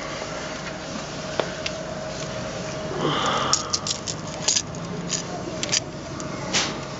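Light, sharp clicks and taps of a steel tape measure and concealed cabinet hinge hardware being handled against a wooden cabinet door. A brief rustle comes about three seconds in, then a quick run of clicks, over a faint steady hum.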